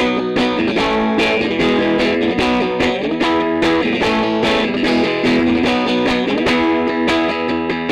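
Fender Custom Shop Limited 1956 Roasted Stratocaster electric guitar played through an amplifier: a steady run of picked notes and chords, several attacks a second.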